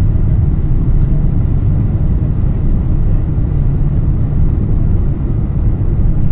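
Steady low rumble of a jet airliner's engines and airflow heard inside the cabin, on final approach low over the runway just before touchdown.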